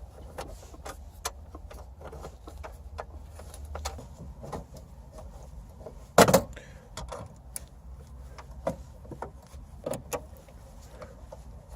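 Scattered small clicks and rattles of parts being handled and fitted into a car's dashboard, with one louder knock about six seconds in, over a low steady rumble.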